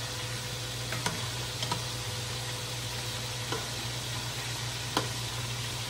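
Calamari rings frying in hot oil in a skillet: a steady sizzle, with a few sharp clicks of a metal fork against the pan as they are turned, over a steady low hum.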